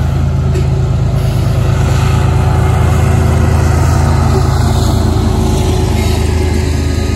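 BNSF diesel locomotive at the rear of a grain train passing close, its engine running with a steady low drone over the rumble and clatter of wheels on rail as the last hopper cars and the locomotive roll by.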